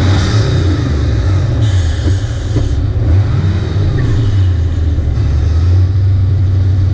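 Turbocharged LS V8 of a Holden Commodore burnout car, heard on board, running loudly with the revs rising and falling. A hiss comes and goes over the engine.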